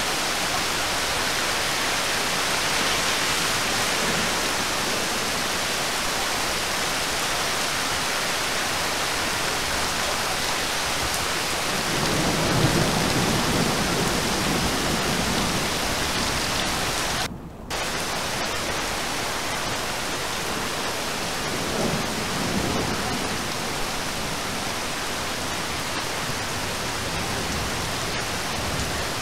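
Heavy rain pouring steadily onto a river and forest, a dense even hiss. A low rumble swells up twice, about twelve and twenty-two seconds in, and the sound drops out for a split second a little past halfway.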